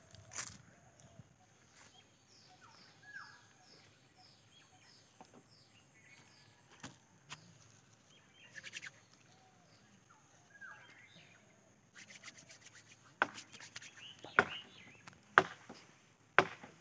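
Birds chirping in the open, with a quick run of falling chirps a few seconds in and a few scattered calls later. From about two-thirds of the way through, a series of sharp knocks and clicks sets in and becomes the loudest sound.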